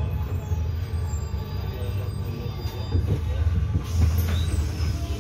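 Interior noise of a city bus on the move: a steady low rumble of the drive and tyres on the road, with faint high whining tones above it.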